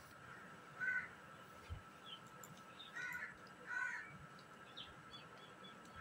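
Ringneck parakeet giving three short calls, about a second in, at three seconds and just before four, with a few faint high chirps between them.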